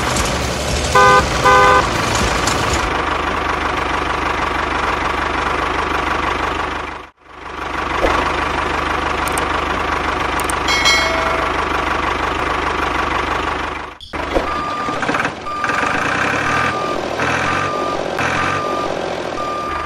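Tractor engine running steadily, with two short horn honks about a second in. The sound breaks off briefly twice, and in the last few seconds a beep repeats about once a second.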